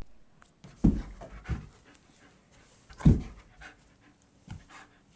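German Shepherd panting, with four louder breathy bursts, the strongest about a second in and about three seconds in.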